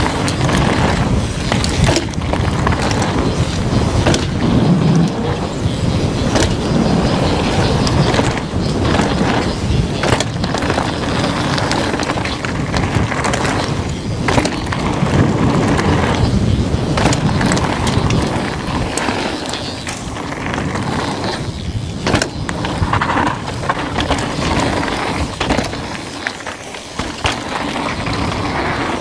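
Downhill mountain bike ridden fast over a rough, rocky trail: continuous rolling tyre noise with frequent clatters and knocks from the bike over bumps, and wind buffeting the microphone. It eases briefly near the end.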